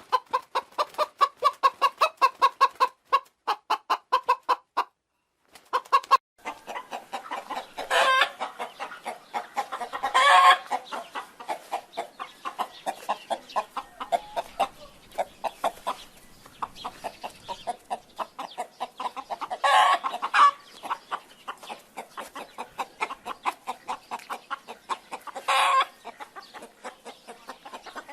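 Hens clucking in rapid, even series of short clucks, about five a second, with a short break about five seconds in. After the break, a few louder, longer calls stand out above the clucking.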